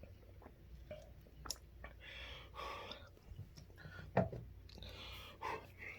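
A person breathing out in soft, heavy breaths, with small mouth clicks, after swallowing a cricket. There is a soft knock about four seconds in.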